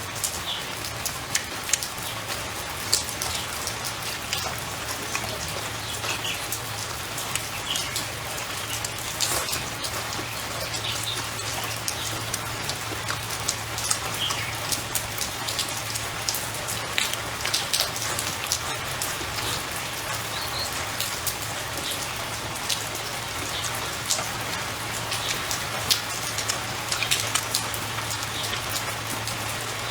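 Steady rain falling, a continuous hiss with many scattered drops ticking sharply.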